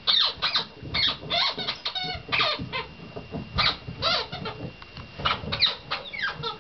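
Squeaky toy chicken squeaking again and again as a small terrier bites and shakes it: a quick, irregular run of short squeaks, some sliding up or down in pitch.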